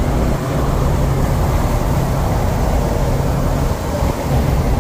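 Steady road and wind rumble in a pickup's cab at highway speed with the windows down, under a constant low engine drone.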